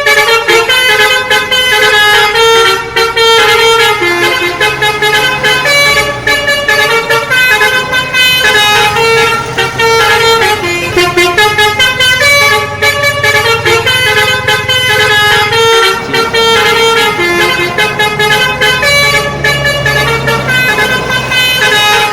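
Bus telolet horn, a set of electric air-horn trumpets, playing a fast, loud melody of short stepped notes. The bus's engine hums low underneath.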